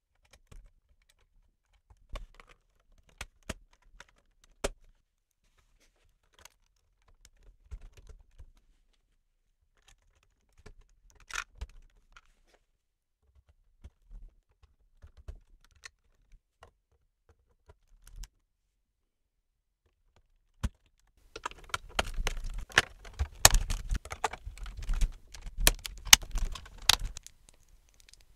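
Plastic LEGO bricks clicking as they are pressed onto a model, in scattered sharp clicks. Near the end comes a few seconds of dense clattering of plastic pieces.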